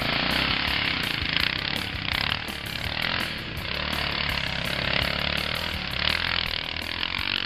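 Dirt bike engine running hard under open throttle as the bike climbs a steep sandy slope with its rear wheel spinning in the sand.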